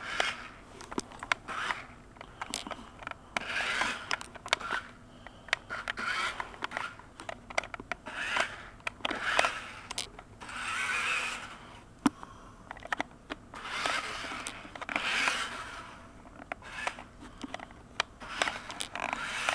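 Small toy remote-control stunt car driven in short bursts, giving repeated half-second to one-second spells of scraping, crackling noise with sharp clicks and knocks between them.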